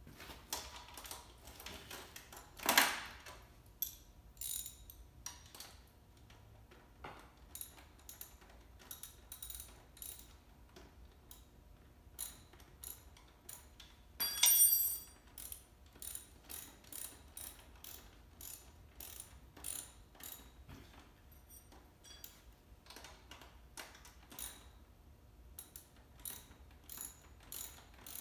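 Ratchet wrench clicking in short runs as fasteners on an electric ATV are tightened during assembly, with two louder knocks, one about three seconds in and one about halfway through.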